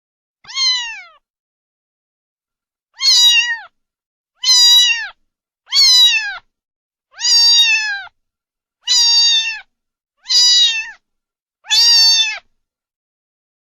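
Domestic cat meowing, eight separate high meows each under a second long and dropping in pitch at the end. After the first there is a pause of about two seconds, then the rest come steadily about every second and a half.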